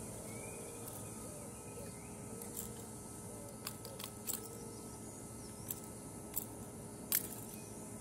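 Fishing pliers working a topwater lure's hooks free from a traíra's mouth: a handful of short, sharp metallic clicks in the second half, the loudest near the end, over a steady outdoor hiss.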